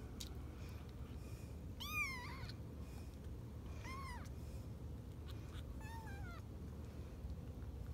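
A young kitten meowing three times, about two seconds apart, each a short high call that rises and then falls; the first is the loudest.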